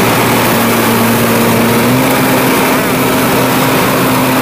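Kubota DC70 tracked combine harvester running at working speed, its diesel engine note steady under the clatter and rush of the header and threshing drum taking in rice; the engine pitch rises a little about halfway.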